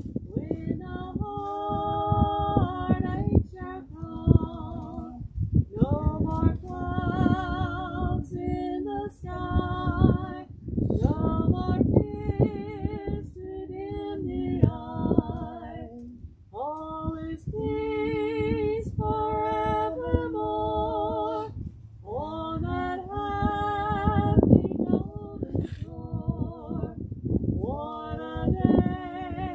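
A woman singing solo in slow phrases of long held notes with a clear vibrato.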